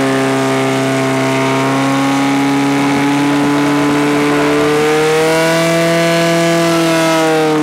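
Portable fire pump's engine held at full throttle, a steady high-pitched drone that edges slightly higher about five seconds in, while it drives water through two hose lines to the nozzles.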